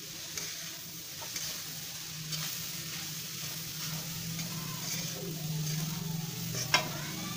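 A spoon stirring and scraping grated fresh coconut in a steel kadhai over a gas flame, with a soft sizzle as the coconut's water cooks off. The scrapes come every second or so, the sharpest near the end, over a steady low hum.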